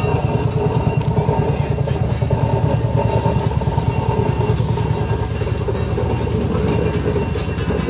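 An engine running steadily close by, with a rapid, even exhaust beat.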